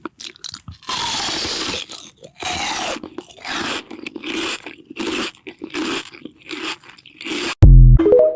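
Loud crunching in a dozen or so separate bursts, each under a second. Near the end comes a sudden, very loud, deep bass boom, followed by a brief pitched tone.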